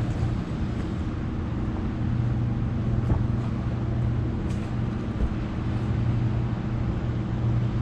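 Car engine idling steadily, a constant low hum, with a soft thump about five seconds in.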